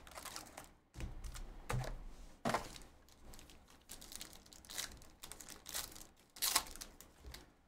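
A foil trading-card pack crinkling in the hands and then being torn open, with irregular rustles and crackles of the wrapper and the box.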